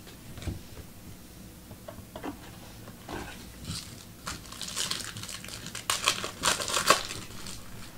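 Crinkling and tearing of a trading-card pack's wrapper being opened, the crackle growing denser in the second half and dying down near the end.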